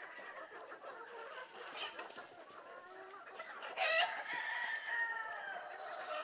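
Chickens clucking, with a rooster crowing loudly just before four seconds in, one long call that slides slowly down until near the end.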